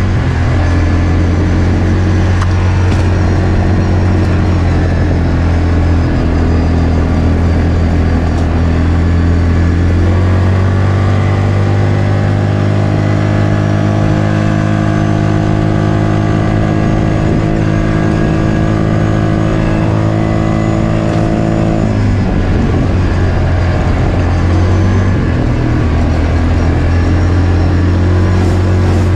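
Yamaha Grizzly ATV engine running hard at a steady pitch, heard from on board at trail speed. The pitch steps up slightly about ten seconds in, drops and goes rough about 22 seconds in, then rises again a few seconds later.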